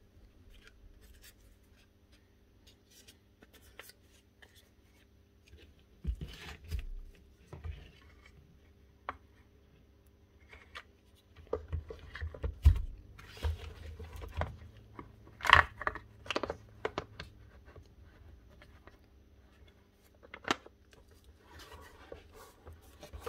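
Parts of a Makita DUH502 cordless hedge trimmer being handled and fitted together during reassembly: scattered clicks, scrapes and knocks, sparse at first and busiest about halfway through.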